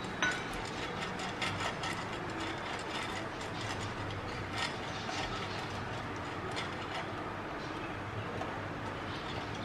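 A pastry brush worked over the ridged plates of a hot electric waffle maker, spreading oil into the grooves: irregular light clicks and scrapes, with a sharper click just after the start.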